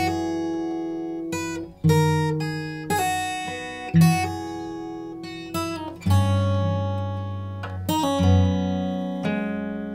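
Background music: an acoustic guitar strumming chords, each chord ringing out and fading before the next, with changes about every one to one and a half seconds.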